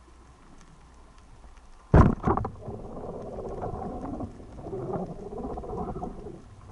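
Speargun fired underwater: a single sharp, loud crack about two seconds in, with a few quick clatters right after, followed by several seconds of wavering underwater noise.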